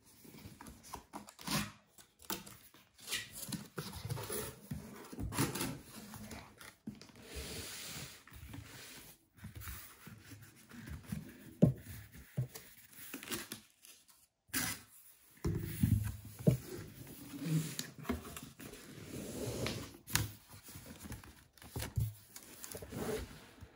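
A cardboard box being opened by hand: the tab pulled free, flaps folded back and cardboard inserts shifted, giving irregular scraping, rustling and knocking.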